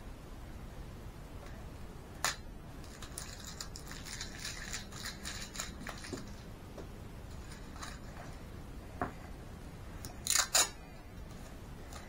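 Hands handling baking paper and tape: a click, a few seconds of light crinkling, then near the end two short sharp rips as tape is pulled off the roll.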